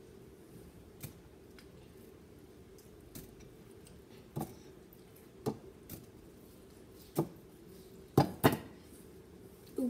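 Watermelon chunks dropped by hand into a glass blender jug, each landing with a short knock or thud at irregular intervals, the two loudest close together near the end.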